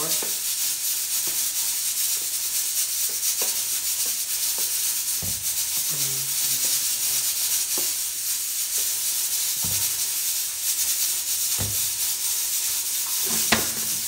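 Flour pouring and shaking out of a plastic container into a plastic tub: a steady soft hiss with a few light knocks of the container, the loudest one near the end.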